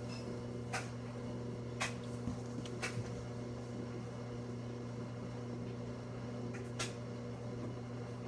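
A steady low hum with a few sharp clicks or taps.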